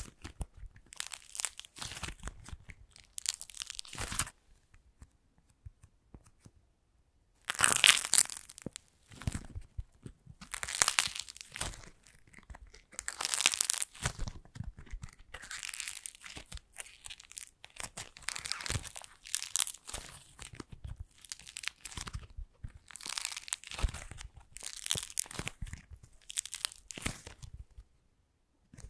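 Hands squeezing and tearing apart modeling clay shaped into macarons, the clay cracking and popping in irregular bursts of crackling and crunching. After a pause of about two seconds comes the loudest burst, and the bursts then run on with short gaps.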